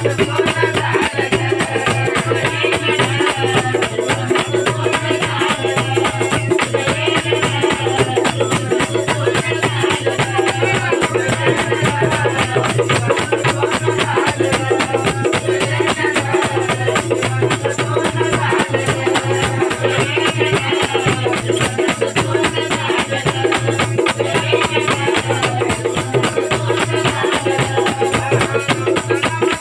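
Devotional folk music: a group singing a goddess song to a two-headed barrel drum played by hand, with fast, steady rattling percussion running under the voices.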